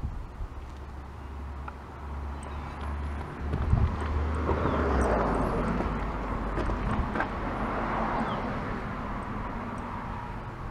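A vehicle passing by, its noise swelling for a few seconds and then fading away.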